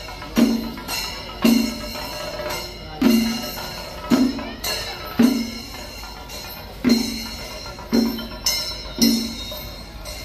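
A percussion ensemble playing: heavy drum strokes come about once a second over a steady ringing of metal cymbals.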